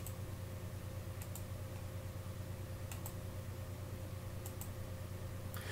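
A computer mouse clicking a few times, spaced a second or so apart, over a steady low electrical hum.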